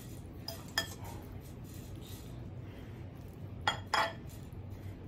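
Metal knife and fork clinking against a glass dish while cutting and eating pineapple upside-down cake: three short sharp clinks, one about a second in and two close together near the end.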